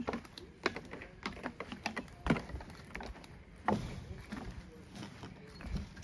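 Footsteps on a wooden-slat boardwalk and a metal mesh walkway, a string of irregular knocks with two louder thuds in the middle.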